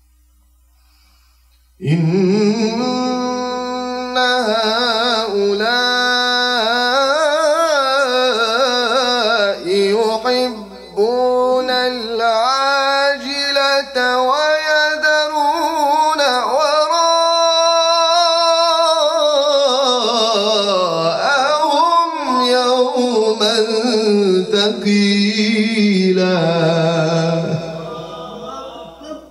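A man reciting the Quran in the melodic, ornamented tajweed style: one long breath-phrase of sliding runs and held notes that starts about two seconds in, closes on the word "thaqila" and fades away near the end.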